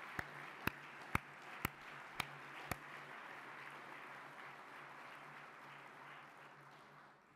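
A banquet audience applauding, an even patter of many hands that fades out near the end. Six louder sharp claps stand out, about two a second, in the first three seconds.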